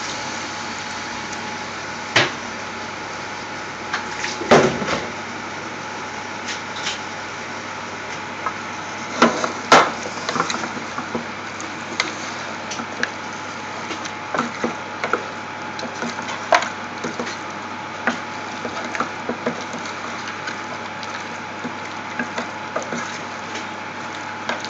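Wooden spoon knocking and scraping against a stainless steel pot while raw chicken pieces are stirred into the spice mix, in irregular clacks, the loudest in the first ten seconds. A steady hiss runs underneath.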